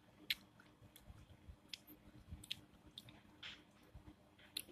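Faint rustling of a newspaper cut-out being handled and pressed by hand, with a few light clicks of the paper.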